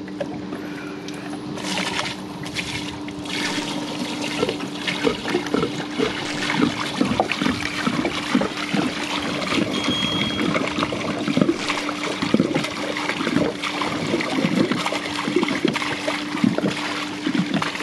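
Gray water pouring out of a 21-gallon Camco Rhino portable tote tank's drain spout and splashing into a dump station's sewer inlet, a steady rush of water with gurgles throughout.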